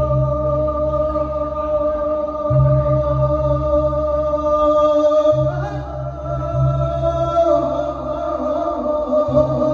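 Thet lae sung-sermon music: a sustained drone with a pulsing low beat that stops and starts in phrases, and a sung voice coming in about halfway through.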